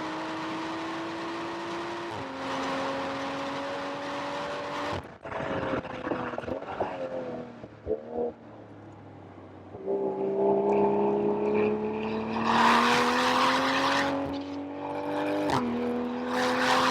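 BMW M340i's turbocharged inline-six accelerating hard, its pitch climbing steadily, with an upshift about two seconds in. Around five seconds in it lets off and slows with short bursts of revs, then pulls hard again from about ten seconds, with a burst of loud rushing noise partway through and another upshift near the end.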